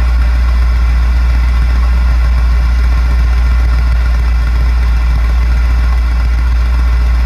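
Jaguar XK8 car radio playing interference with its aerial disconnected and the engine running: a steady loud hum and hiss, with the engine-timed clicking still present but not quite as pronounced. This is ignition noise, which the owner traced to oxidised coil-pack-to-spark-plug contacts.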